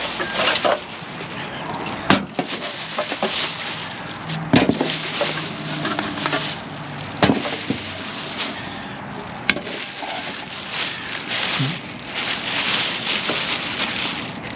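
Crinkling and rustling of a plastic tarp being handled, with a few sharp knocks at intervals of two or three seconds.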